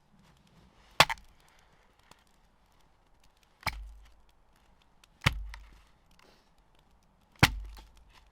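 Four sharp blows a couple of seconds apart; the last three each end in a short dull thud.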